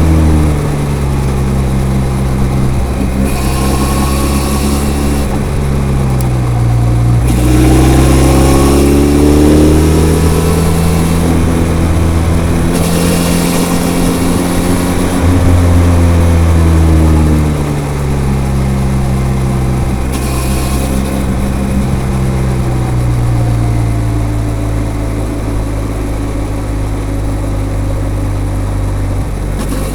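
Benelli TRK 502's parallel-twin engine through its stock, unmodified exhaust while riding. The revs rise and fall repeatedly with throttle and gear changes, then settle lower and steadier near the end.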